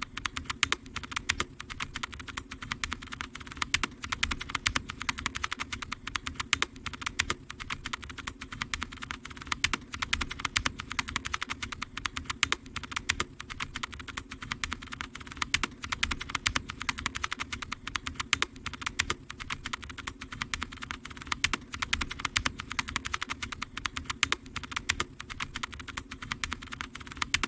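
Continuous typing on a mechanical keyboard with linear switches: a quick, irregular stream of deep keystroke clacks.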